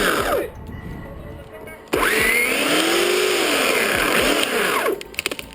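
Chainsaw revving. A rev dies away in the first half-second, then the saw is opened up again about two seconds in, held at high speed for about two seconds and eased off near the end.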